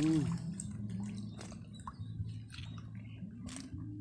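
A hooked fish splashing at the water's surface as it is pulled in on the line, followed by a scatter of small splashes and drips.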